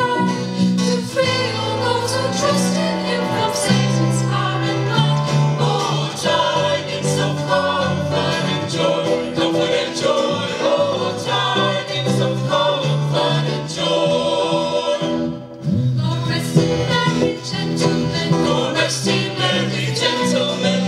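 Mixed choir singing a Christmas gospel song with a live band of electric bass, acoustic guitar and keyboard. The music breaks off briefly about three-quarters of the way through, then carries on.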